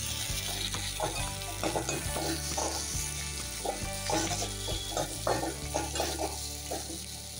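Potato slices frying and sizzling in oil in a metal kadai while a perforated metal spoon stirs and scrapes them against the pan, with irregular scraping strokes several times a second.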